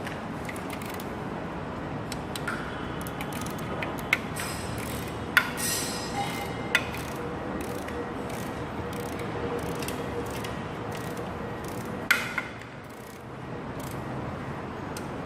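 Ratchet and torque wrench clicking, with metal tools clinking, while small cover bolts are tightened on an engine block. Scattered sharp clicks, a few louder, over a steady background hiss.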